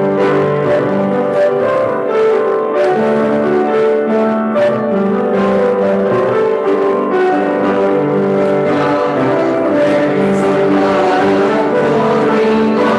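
Keyboard instrument playing the introduction to a hymn in full sustained chords that change steadily, with no singing yet.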